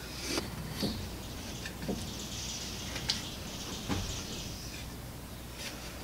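A few light knocks and a soft scrape of wooden hive parts being handled: a glued wooden piece pressed into the frame of a beehive's open mesh floor, then the frame stood on end.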